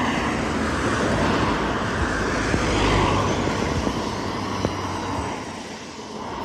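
Steady engine and road noise of a motor vehicle running, a low hum under an even rush, that cuts off abruptly near the end.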